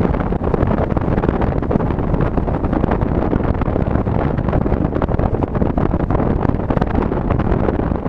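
Car driving along at speed: steady road and tyre noise mixed with wind buffeting the microphone.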